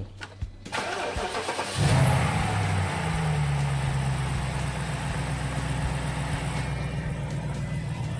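BMW N62 V8 engine, with freshly replaced PCV valve diaphragms, being started. The starter cranks for about a second, the engine catches with a brief rev flare about two seconds in, then it settles into a steady idle.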